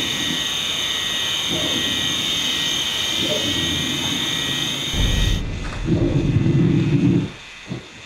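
A low, rough growl in camcorder audio, over a steady hiss with high whining tones; the narrator could not match it to any animal he knew. Shorter low growls come about one and a half and three seconds in, the loudest and longest from about six to seven seconds in, and the camera hiss drops away a little after five seconds.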